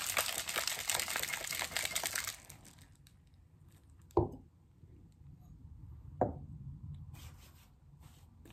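Ice rattling hard in a stainless steel cocktail shaker as it is shaken, stopping about two seconds in. Then two single dull knocks, the later one about two seconds after the first, the loudest sounds in the stretch.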